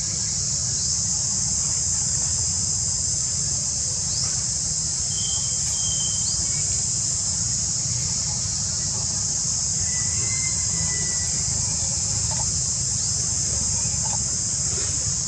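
Steady high-pitched insect chorus droning without a break, over a low steady rumble. A few short, faint chirps sound about a third of the way in and again about two-thirds in.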